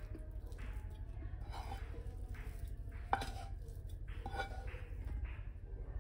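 A table knife scraping soft, mashed vegetable cutlet mixture out of a non-stick frying pan into a glass bowl. Soft scrapes run throughout, with a sharp clink of metal about three seconds in and a lighter one about a second later.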